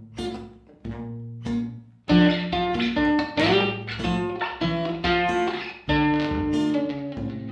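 Background music played on plucked guitar: a few single notes that ring and fade, then from about two seconds in a fuller, louder run of notes with a bent note in the middle.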